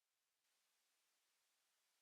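Near silence: digital silence or faint hiss at the join between two recordings.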